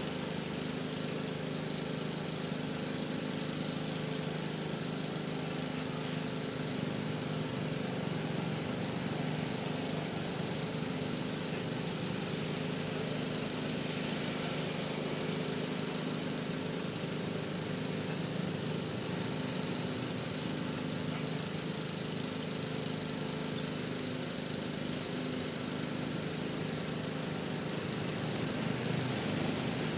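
A small engine runs steadily with an unbroken drone that stays at the same level throughout.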